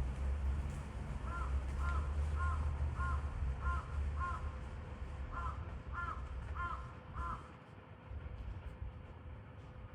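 A bird calling ten times in two runs of short, evenly spaced calls, with a pause between the runs, over a low rumble that fades out about halfway.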